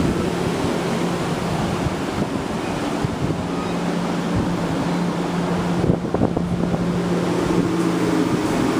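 Strong wind buffeting the microphone, with a steady low hum underneath and a few brief knocks about six seconds in.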